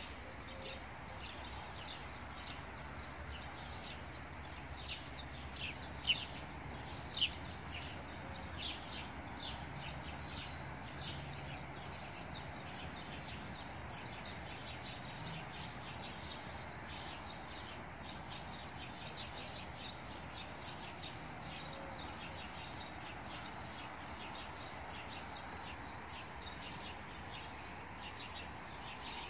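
Small birds chirping: many quick short calls overlap throughout, with a few louder chirps about six and seven seconds in, over a steady background noise.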